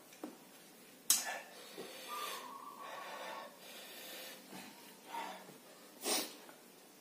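A man breathing hard through his mouth against the burn of ghost-pepper chilli, with two sharp hissing breaths, one about a second in and one near six seconds, and softer breaths between.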